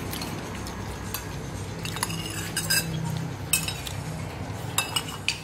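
Metal spoons clinking against ceramic plates and bowls as people eat, about half a dozen sharp clinks with a short ring, mostly in the second half, over a steady low hum.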